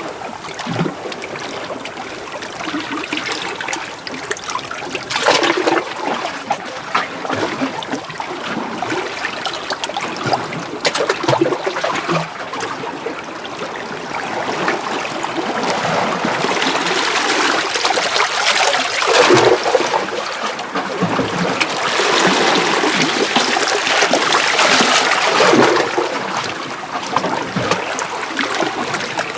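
Small sea waves washing in and out among shoreline rocks, with splashing and trickling water as each surge drains back. Several louder splashes stand out, and the surges grow louder in the second half.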